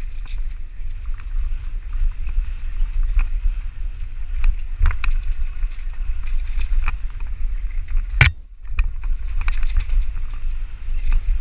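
Mountain bike riding over rough dirt trail, with heavy wind rumble on the microphone and scattered knocks and rattles from the bike over bumps. The sharpest knock comes about eight seconds in.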